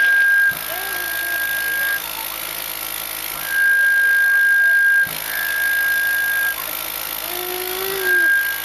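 Cough assist machine (mechanical insufflator-exsufflator) cycling through its breaths: a hiss of air over a steady high whine, in a louder phase of about a second and a half and then a softer one, with a short pause before the next cycle, about every four to five seconds. Each cycle pushes air into the lungs and then pulls it out, to help a toddler with SMA type 1 cough.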